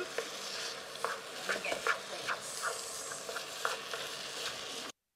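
Black plastic spatula stirring and scraping corned beef fried rice in a nonstick frying pan, with short scrapes at uneven intervals over a steady sizzle. The sound cuts off suddenly about five seconds in.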